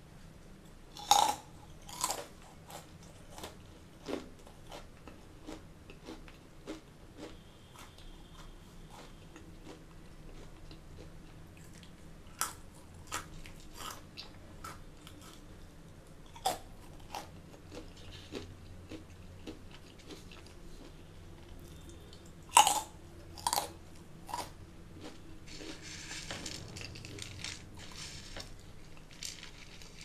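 Close-miked crunching and chewing of crunchy Indian namkeen snack mixture: a few sharp crunches with each fresh mouthful, then softer chewing crackles. Near the end there is a soft rustle as fingers pick more mixture from the plate.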